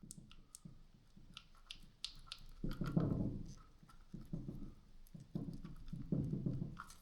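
Scattered light clicks and taps with a few duller rubbing sounds: small parts of a hammer drill's gearbox being handled and pried at during disassembly.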